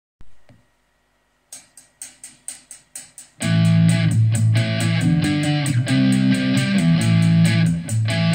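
Opening of a rock song. After a brief faint note, a quick run of sharp ticks sets the beat at about a second and a half in. At about three and a half seconds in the full band comes in loud, with electric guitar and bass over the drums.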